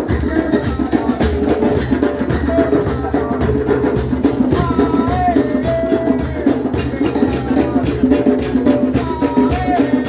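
Lively percussion jam on a djembe hand drum and a makeshift drum kit of steel cooking pots and stacked steel plates used as cymbals, struck with hands and sticks in a fast, dense rhythm. A melody line that slides between notes rides over the drumming.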